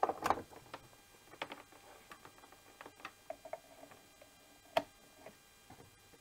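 Light handling of a power cord and a plastic multiport USB charging station as its plug is pushed into the charger's side input socket: a scatter of small clicks and rustles, with one sharper click near the end as the plug goes home.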